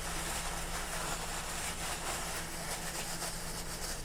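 Steady low hum with an even background hiss and no distinct knocks or cuts.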